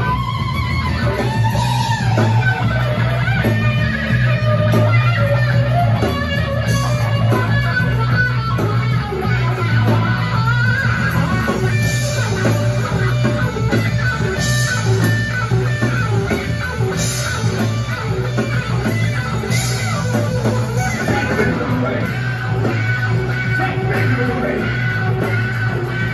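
Live rock band playing an instrumental passage: electric guitar over bass guitar and drums, loud and continuous, with cymbal crashes about every two and a half seconds in the second half.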